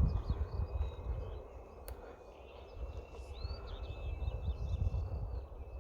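Wind buffeting the microphone in gusts, strongest in the first second, while small birds chirp in the background. A faint, steady high whine runs underneath.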